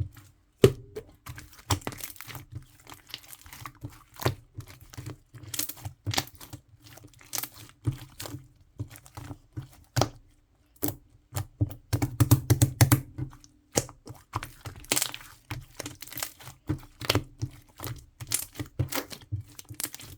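Hands pressing and stretching melted, runny slime: a steady run of wet sticky clicks, pops and crackles, busiest about twelve seconds in.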